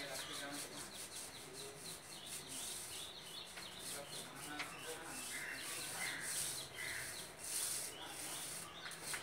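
Paint roller on a long extension pole rolling paint onto a rough textured wall: a scratchy rubbing in repeated strokes.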